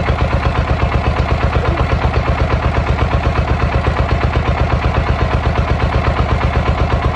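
Small tractor engine idling with a steady, rapid, even chug, about eight beats a second.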